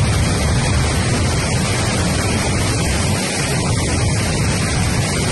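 Floodwater of the Krishna River surging through large standing waves below Prakasam Barrage: a loud, steady rush of churning water.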